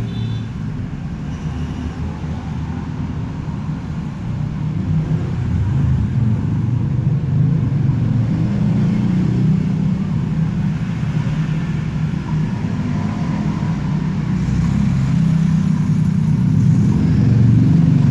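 Steady low rumble of a running engine, growing louder about five seconds in and again near the end.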